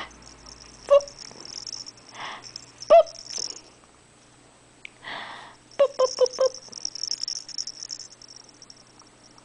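A baby's short high squeaks and breathy puffs, the loudest near the start and a quick run of four squeaks about six seconds in, with the small rattle inside a soft plush toy ball shaking at times as the toy is handled.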